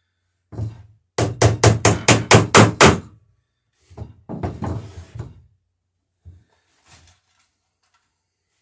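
Hammer blows on the rivets in a wooden dory's lapstrake planking. One knock, then a quick run of about nine sharp blows at roughly five a second, a second closer-packed run a second later, and a couple of light taps near the end.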